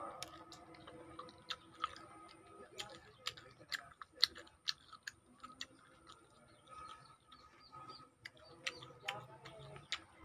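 Close-up mouth sounds of chewing and sucking fresh lemon slices: a run of sharp, wet clicks and smacks, irregular, a few a second.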